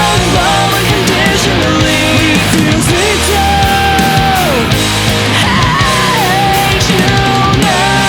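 Fast melodic punk rock from a full band, with a lead melody that bends and slides in pitch and no singing.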